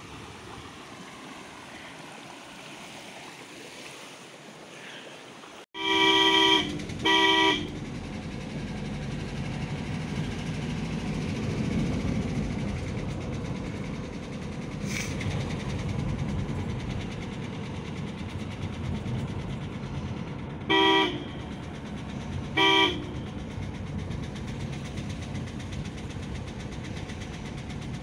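A shallow stream runs over rocks, then the sound cuts to the inside of a moving car: steady engine and road rumble, with a car horn giving two quick double honks, one pair about six seconds in and another about twenty-one seconds in.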